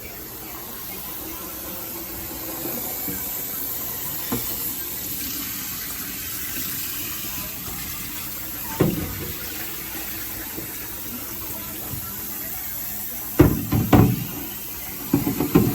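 Water running steadily, with a few knocks and thuds about nine seconds in and a cluster of louder ones near the end.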